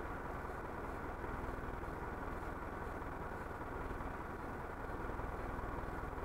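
Truck engine idling with a steady, even drone.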